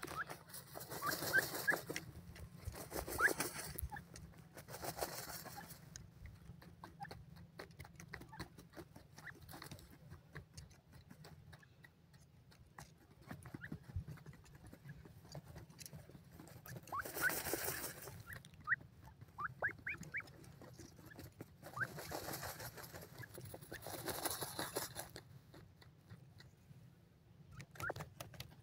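Grey francolins dust-bathing in dry soil: about half a dozen bursts of scratchy rustling, each about a second long, as they shuffle and flick loose earth, with scattered tiny ticks of falling soil and a few short, thin rising chirps in between.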